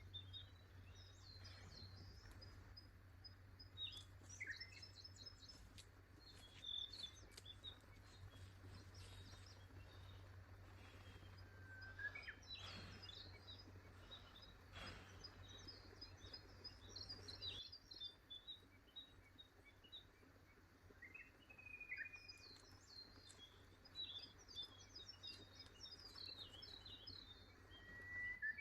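Faint songbirds chirping and trilling in a forest, in scattered short phrases with a few brief whistles. A low steady hum sits underneath and stops about two-thirds of the way through.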